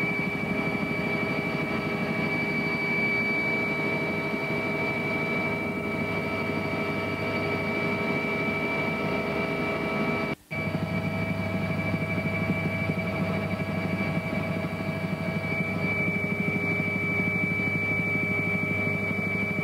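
A steady engine drone with a constant high tone on top, broken by a brief cut about halfway through.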